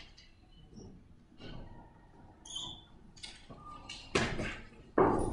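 Scattered rustling and handling noises, with a couple of brief high squeaks a little after two seconds in. The two loudest rustles come about four and five seconds in.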